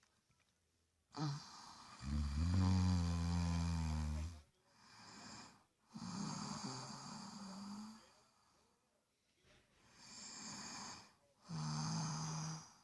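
A person snoring: three loud snores with a low drone, the first and longest starting about a second in, and softer breaths between them.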